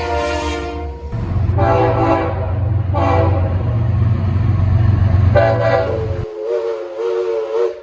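Diesel freight locomotive horn blowing a chord in separate blasts, long, long, short, then a long one to the end, in the grade-crossing pattern, over a steady low engine rumble. The rumble cuts off suddenly a little over six seconds in while the last blast carries on.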